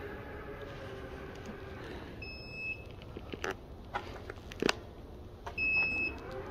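Electric motor hum of a retrofitted power-liftgate kit on a Hyundai Kona as the tailgate finishes rising, stopping about two seconds in. Then a short high beep from the liftgate's buzzer, a few sharp clicks, and a second beep near the end.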